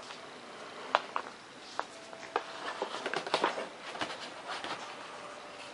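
Hot glue gun being handled while its glue stick is changed: a few sharp clicks, then a run of small clicks and light rustling.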